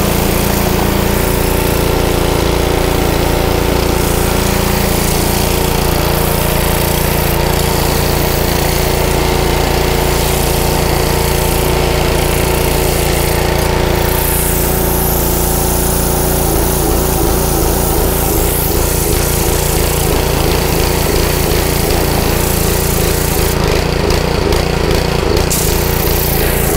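Honda GC160 single-cylinder engine driving a pressure washer pump, running steadily under load with the hiss of the water jet over it. The engine is surging, a fault the owner traces to the carburettor.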